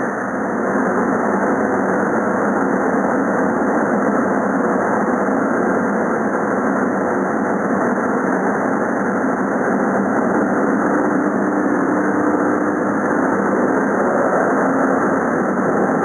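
Amada FO-3015 CO2 laser cutting machine running, a steady mechanical noise with a faint hum through it.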